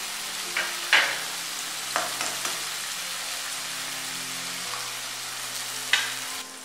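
Onion-tomato masala sizzling steadily in hot oil in a nonstick kadai, with a few sharp taps as eggs are cracked on the pan's rim and dropped in near the end.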